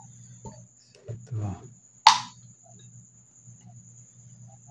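A small plastic tub being handled and set down on the workbench's rubber mat, with soft rustling and then one sharp knock about two seconds in, over a steady high-pitched whine and a low hum.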